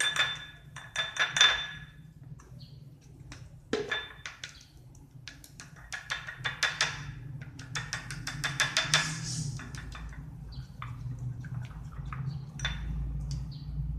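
A plastic spoon scraping and clinking against a ceramic bowl in quick runs of strokes, with a short ring from the bowl, while scooping and stirring thick glue for slime.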